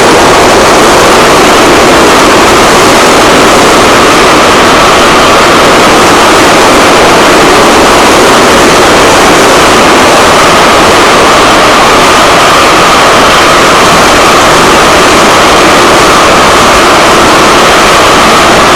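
Metro train running at speed between stations, heard from inside the carriage: loud, steady rumbling noise of wheels and rails with no breaks.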